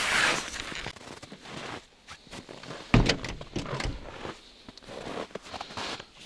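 Irregular crunching and scraping on snow-covered ice, with scattered knocks and one sharp thunk about three seconds in.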